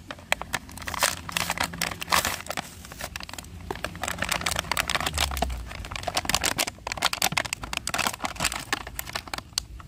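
Plastic blister packaging and its cardboard backing card being torn open by hand, a dense run of crinkles, crackles and rips as the toy is pulled free of the plastic.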